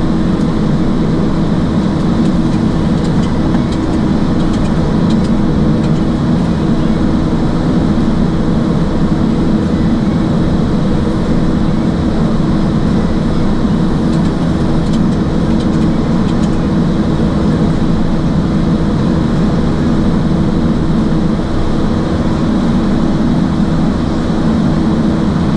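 Steady rushing noise on a Boeing 737 flight deck in flight, airflow and air-conditioning, over a constant low hum.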